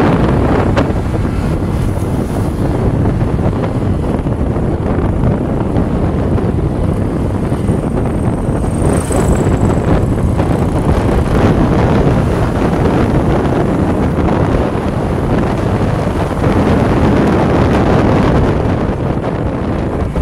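Steady wind rush buffeting the microphone of a moving vehicle, with engine and road noise underneath.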